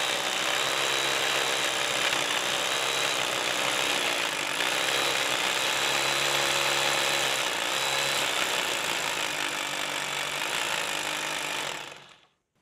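Corded Milwaukee hammer drill boring a 3/4-inch anchor hole into a concrete slab with a carbide hammer-drill bit, running steadily and stopping shortly before the end.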